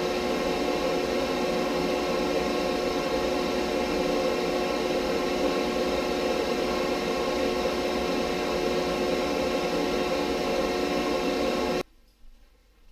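Shop vac running steadily, a motor whine over rushing air, driving a venturi pipe that pulls goose down into a quilt shell. It cuts off suddenly near the end.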